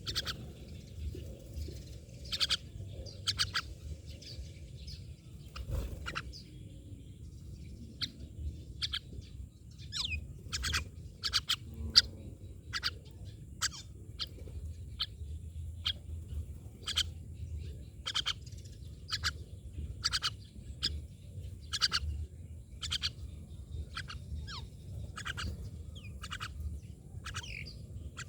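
Myna birds calling: short, sharp calls repeated irregularly, about one every half second to second, over a steady low rumble, with one sharp loud click about midway.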